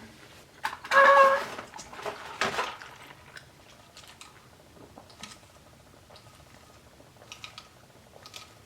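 A person biting into and chewing a crispy fried chicken sandwich. There are a couple of louder sounds in the first three seconds, one with a short hummed tone, then soft, crunchy clicks of chewing.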